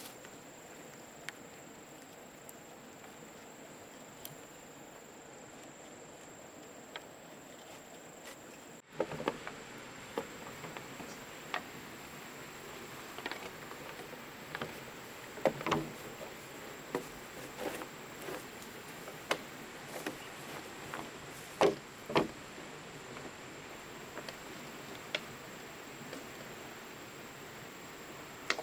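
A steady high insect buzz over a faint hiss. From about nine seconds in come scattered sharp knocks and clacks at irregular intervals, the loudest near the middle.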